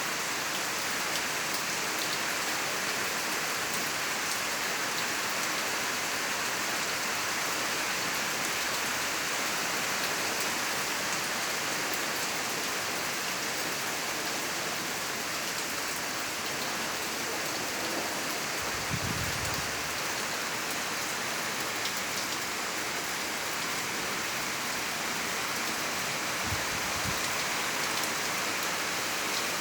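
Steady rain falling, an even hiss of drops on surfaces, with two brief low rumbles, one about two-thirds of the way through and one near the end.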